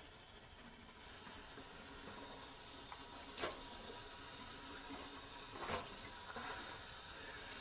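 Kitchen faucet turned on and running steadily into the sink, with two sharp clinks of dishes about halfway and two-thirds of the way through.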